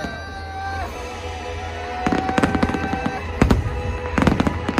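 Aerial fireworks bursting, a quick string of bangs and crackles that begins about two seconds in, over music with long held notes.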